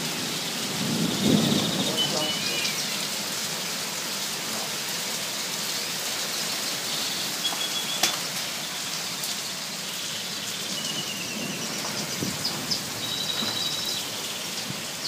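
Heavy rain pouring steadily, with a low rumble of thunder swelling about a second in and a single sharp knock about eight seconds in.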